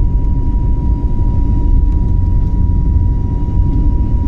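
Airliner's engines and airflow heard inside the cabin during the climb after takeoff: a loud, steady low rumble with a steady high whine over it.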